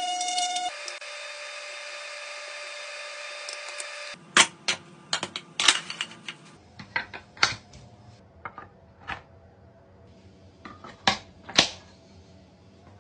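A handheld power tool running steadily on a walnut tray for the first four seconds, its pitch dropping just under a second in. Then a string of sharp wooden clacks and knocks as solid walnut trays are set down on the wooden workbench and slid together, loudest around four and a half, five and a half, seven and a half, and eleven to twelve seconds.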